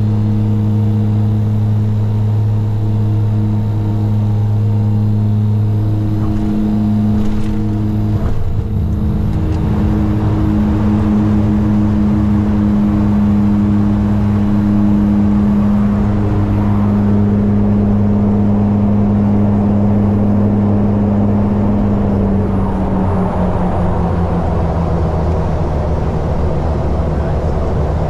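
Twin Garrett TPE331 turboprop engines of a BAe Jetstream 32, heard from inside the cockpit during the landing roll: a steady engine and propeller drone with two low tones. A rushing noise builds from about ten seconds in, and the tones step down in pitch a little after twenty seconds.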